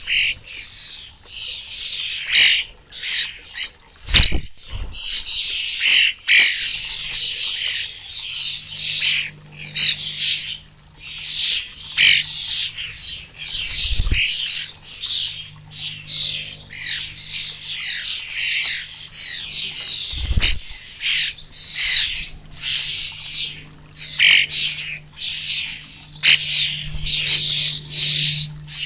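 Fledgling common starlings giving harsh begging calls over and over, almost without a break, as adults feed them. A few low thumps stand out.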